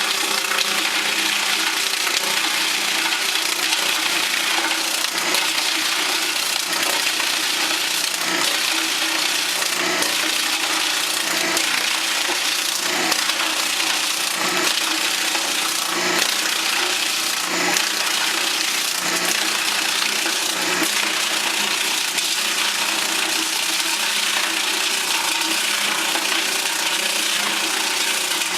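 Large wood lathe cutting into turning wood: a steady, even shaving hiss over the machine's motor hum, swelling briefly now and then.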